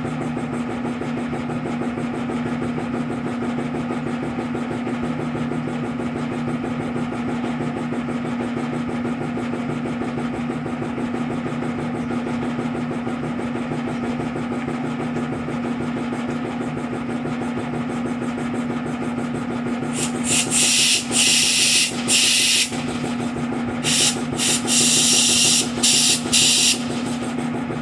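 A steady machine hum throughout, joined about 20 seconds in and again about 24 seconds in by loud hissing in several short blasts.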